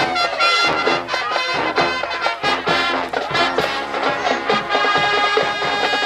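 High school marching band playing: full brass section holding chords, with drum hits marking the beat.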